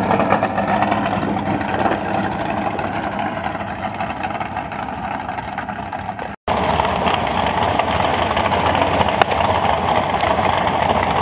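Race car engines idling. The first engine fades slowly over about six seconds; then the sound cuts abruptly to a steadier, louder engine idle.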